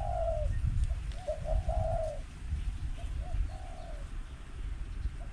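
Doves cooing in repeated phrases of short coos followed by a longer drawn-out coo: a dove call played on a speaker as a lure, with wild doves answering it. Wind rumbles on the microphone throughout.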